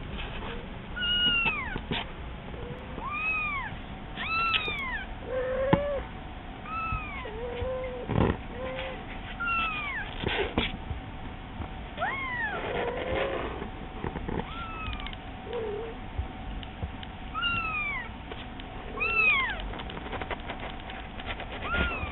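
A young kitten mewing over and over in short, high, arching cries, every second or two, answered now and then by lower meows from its mother cat.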